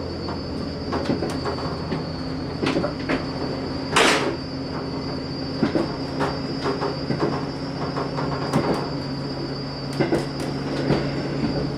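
Inside a JR Hokkaido local diesel railcar under way: a steady low engine hum and a thin high whine, with wheels clicking and knocking over rail joints. A short loud hiss or screech comes about four seconds in.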